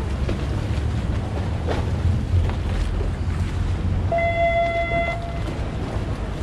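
Choppy lagoon water slapping and splashing against a stone quay and moored gondolas, with wind rumbling on the microphone. About four seconds in, a steady high tone sounds for about a second.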